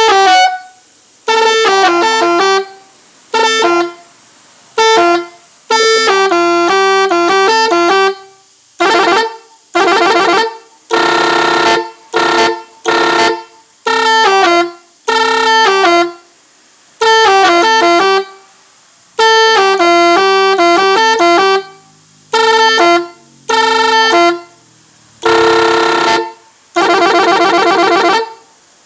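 Chrome three-trumpet 24-volt air horn, fed from an air tank and worked through its six-button controller, sounding a long series of loud blasts. The pitch steps from note to note within each blast, so the horns play short melodic phrases, with brief pauses between them.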